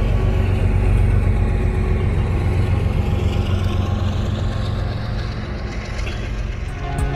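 Freight train's diesel locomotive running with a steady low engine drone, easing off a little after about five seconds. Music comes in just at the close.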